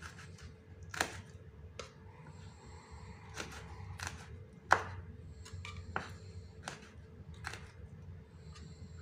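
Kitchen knife chopping red bird's eye chillies on a wooden cutting board: about a dozen irregular sharp knocks of the blade on the wood, one louder knock about halfway.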